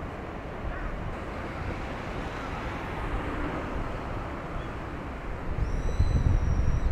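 Low, steady rumble of a large car carrier passing close by, with the wash of its wake. Near the end the low rumble swells sharply as wind buffets the microphone.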